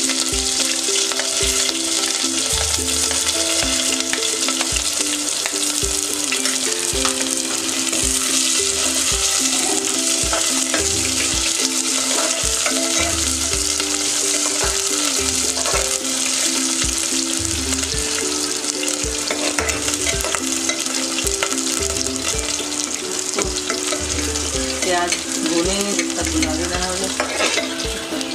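Sliced onions frying in hot oil in a pressure cooker, a loud, steady sizzle, stirred with a perforated metal skimmer.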